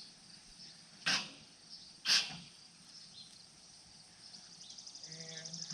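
Two sharp bangs about a second apart, metal parts of an old rusted grain bin being knocked loose during teardown. Near the end a fast, even insect trill rises over the faint background.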